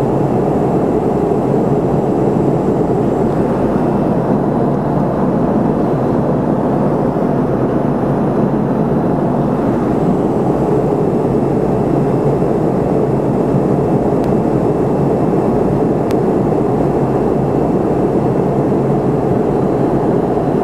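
Steady cabin drone inside a McDonnell Douglas MD-80 airliner in flight: its rear-mounted Pratt & Whitney JT8D turbofans and the airflow past the fuselage, heard from a window seat.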